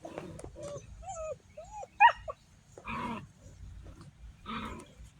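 Young puppies whimpering and yipping in short rising and falling whines, with one sharp, loud yelp about two seconds in and two short rough barks after it.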